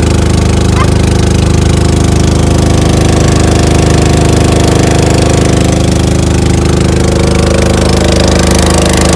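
Small river boat's engine running steadily and loudly, with a fast, even beat.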